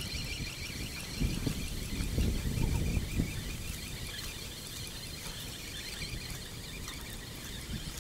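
Wind buffeting the microphone in gusts, strongest in the first few seconds, with a faint, evenly repeating high chirping behind it.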